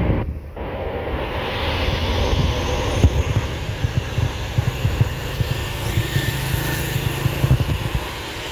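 Road traffic, mostly a low, steady engine rumble, as a Mercedes-Benz 1626 diesel coach pulls away down the road with cars passing behind it.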